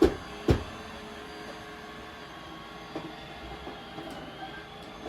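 Robot vacuum running steadily with a faint whine, after two sharp knocks about half a second apart at the start.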